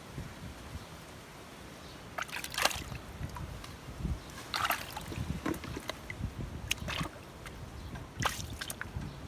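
Water sloshing, with a few short splashes spread irregularly through it.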